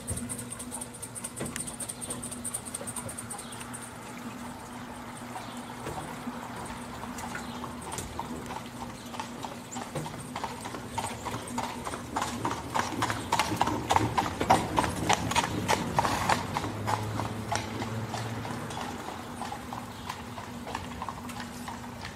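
A horse's hooves clip-clopping in an even rhythm, growing louder to a peak a little past the middle and then fading as the horse passes. A steady low hum runs underneath.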